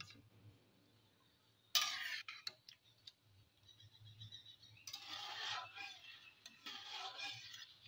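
Metal spatula stirring mango pieces in broth in a metal kadai: a short scrape and a few ticks about two seconds in, then two softer, longer scraping swishes later on.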